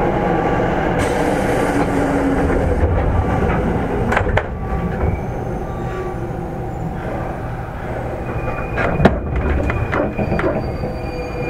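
Interior running sound of a JR East 205 series 3100 subseries electric train's motor car (MT61 traction motors) slowing for a station stop: a continuous rumble of wheels on rail, with falling motor tones and a few sharp clicks. A wheel or brake squeal begins just at the end.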